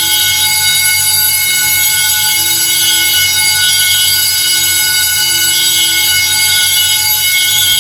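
Fire alarm horn sounding continuously with a loud, steady buzzing tone. A second tone cuts in and out over it about once a second.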